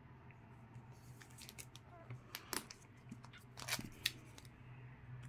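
Faint handling of comic books in glossy sleeves, slid and shuffled by hand on a table: scattered soft rustles and short clicks, a few sharper ones a little past the middle.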